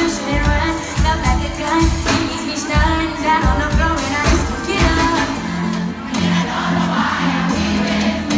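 Live concert sound: a woman singing into a microphone over R&B music with a heavy kick drum beating about twice a second. About five seconds in the drums drop out, leaving held bass notes under the voice.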